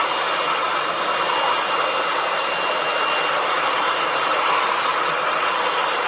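Handheld hair dryer blowing steadily, a constant rushing with a thin high whine.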